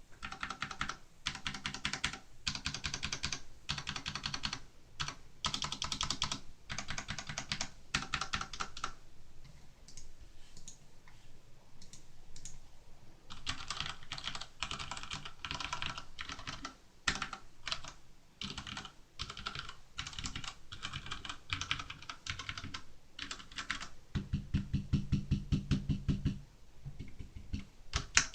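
Ozone Strike Battle mechanical keyboard with Cherry MX Brown switches being typed on quickly, in bursts of rapid keystrokes. The typing goes lighter for a few seconds about a third of the way through, and near the end there is a run of deeper, heavier key strikes.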